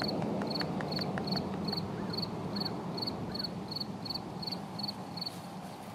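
A cricket chirping in an even rhythm, about two and a half short high chirps a second, over a steady low background hiss.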